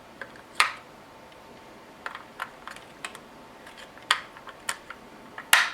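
Sharp plastic clicks and small knocks of CR123A batteries being worked out of and pressed into the battery holder of a DSC wireless smoke detector. They come irregularly, a dozen or so, with the loudest about half a second in and near the end.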